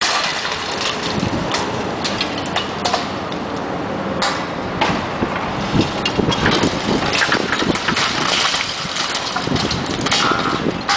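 John Deere 450 crawler's diesel engine running, with repeated knocks and clatter of bricks and debris being knocked down.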